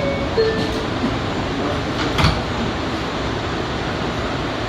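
Bombardier R179 subway car's two-note falling door chime, then its sliding doors closing with a sharp thud about two seconds in, over steady car noise.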